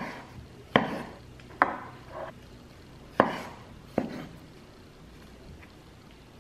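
Chef's knife chopping through a beet and striking a wooden cutting board: five sharp knocks at uneven intervals over about four seconds.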